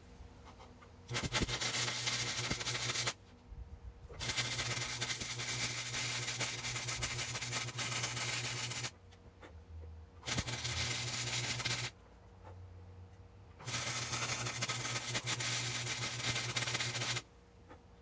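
Wire-feed (MIG) welder arc crackling and sizzling in four separate welds, each lasting about one and a half to four and a half seconds, with a low hum under each weld. The welds are tacking and welding a steel engine mount onto a bicycle frame.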